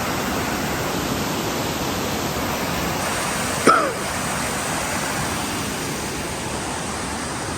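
Waterfall rushing steadily, a loud even roar of falling water. One short, sharp pitched sound cuts through it about halfway through.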